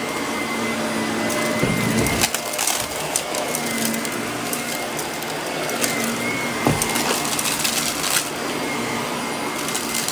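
Shark upright vacuum cleaner running over carpet: a steady motor hum and whine, with clusters of crackling and clicking about two seconds in and again near seven to eight seconds as debris rattles up through the brushroll.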